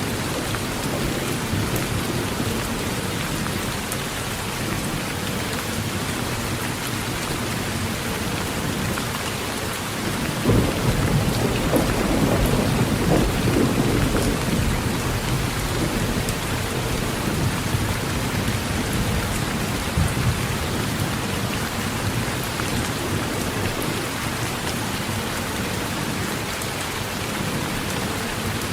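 Heavy rain drumming steadily on a tin roof, with a roll of thunder rumbling about ten seconds in and lasting several seconds.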